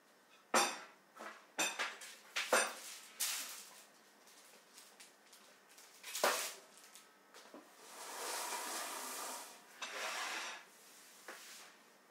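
Kitchen dishes and cutlery clattering: a handful of sharp clinks and knocks in the first three seconds, another about six seconds in, then a couple of seconds of steadier noise near the end.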